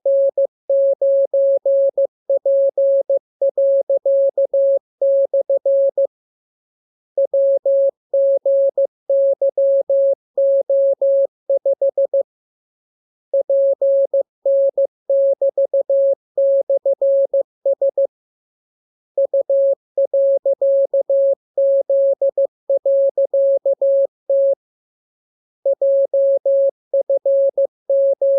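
Morse code practice signal: a single steady tone keyed on and off in quick dots and dashes, sent in runs of about five seconds with a pause of about a second between them.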